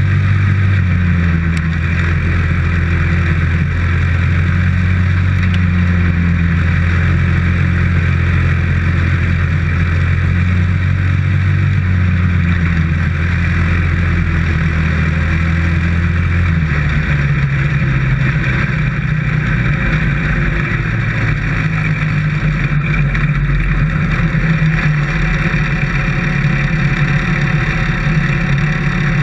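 A dirt-track race car's engine heard from inside the cockpit, running at a steady pitch with wind and chassis noise. A little over halfway through, the engine note drops lower and becomes more uneven as the car eases off.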